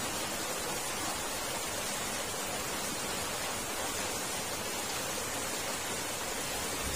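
Water rushing steadily in a drain culvert: an even hiss with no breaks or changes.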